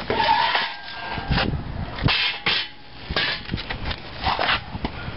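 Hammer knocking a Nissan 240SX aluminium bushing into its bore: irregular sharp knocks, some in quick bunches, with clattering handling noise between.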